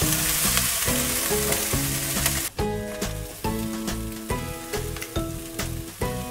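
Cooked basmati rice hitting a hot pan of fried onions and spices, sizzling, with the sizzle dropping away about two and a half seconds in as it is stirred with a spatula. Background music plays underneath.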